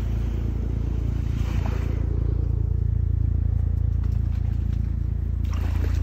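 A steady low mechanical hum, with a soft swish of water during the first two seconds.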